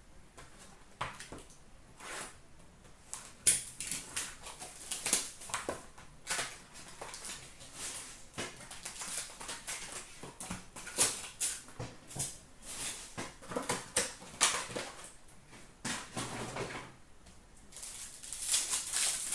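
A cardboard trading-card box and a plastic card-pack wrapper being handled and torn open by hand: irregular crinkling and crackling, with sharper crackles about three and a half seconds in and again near the end.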